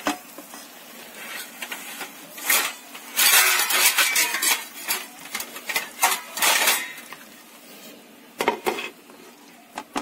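Silicone spatula stirring and scraping a thick, sticky sweet-vermicelli mixture in a pan, in several short spells, then a few sharp clinks near the end as a glass lid is set on the pan.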